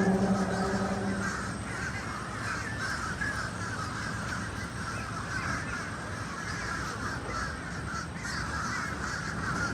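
A flock of birds calling continuously in a harsh, crow-like chatter. A low droning tone fades out about a second in.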